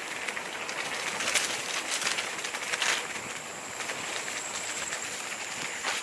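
Mountain bike rolling over a dirt and leaf-littered forest trail: steady tyre noise on the ground with the bike rattling, and a few sharp knocks from bumps.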